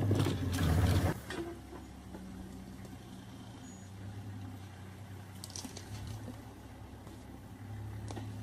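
Safari vehicle's engine idling with a low, steady hum, after a louder burst of noise in the first second that stops abruptly.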